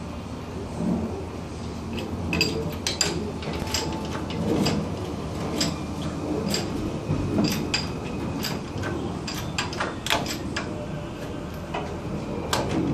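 Lifting chains clinking and clicking irregularly as the engine is hoisted out of the engine bay, over a low rumble.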